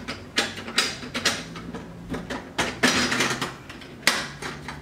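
Quarters and plastic coin sleeves being handled and tossed about: an irregular run of clicks, clinks and clatter, with a louder clack about four seconds in.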